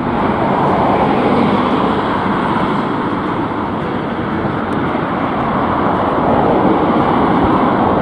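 Steady road traffic: cars passing on a multi-lane road, a continuous rush of tyre and engine noise.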